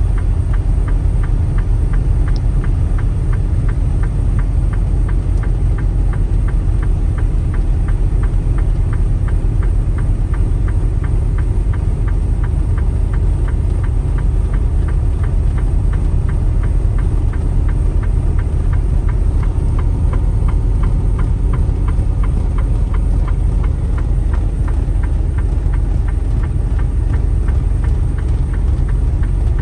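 Semi truck driving slowly, heard from inside the cab: a steady low engine and road rumble with a fast, even ticking running through it.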